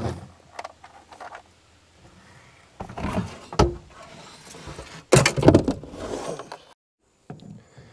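Knocks, clatter and scraping as a heavy lithium battery is set down and worked into place inside an aluminium boat's battery compartment. The loudest part is a long sliding scrape about five seconds in.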